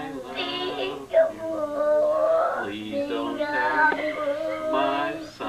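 A person singing a slow tune with long held, sliding notes.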